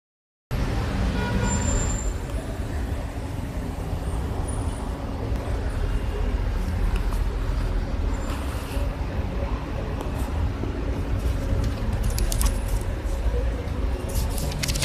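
Steady low rumble of road vehicles, with a few light clicks and rustles near the end.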